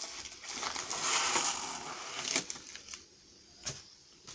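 Packaging being handled: a crinkling, crushing rustle for about two seconds, then two short knocks.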